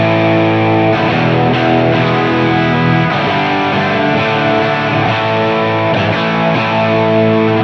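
Electric guitar played through a Line 6 Helix running a PROXY capture of a 1966 Vox AC30 amp, with a Klon-style overdrive engaged: overdriven chords played and left to ring, chimey on top.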